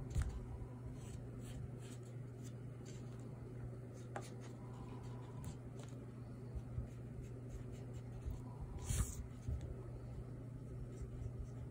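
Ink pen strokes scratching on drawing paper as shading is inked in, with a louder brief scratch about nine seconds in, over a steady low room hum.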